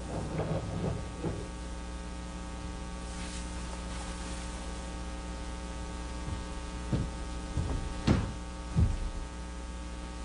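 Steady electrical mains hum with many overtones, with a few soft rustles and light knocks, briefly near the start and again near the end.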